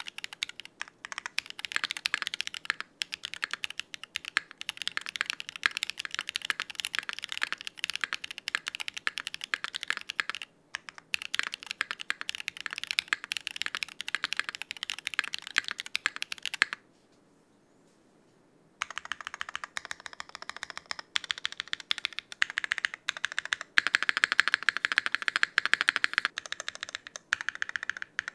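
Fast, continuous typing on a Smith+Rune Iron160 60% mechanical keyboard with a copper plate, Krytox-lubed Geon Black switches and GMK keycaps: a dense stream of keystroke clacks. The typing stops for about two seconds a little past the middle, then resumes.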